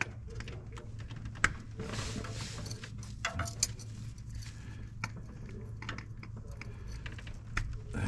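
Small clicks, ticks and rubbing of spark plug wires and their rubber boots being handled and pressed into place on a V8's plug wire set, with a few sharper clicks about one and a half and three and a half seconds in. A steady low hum runs underneath.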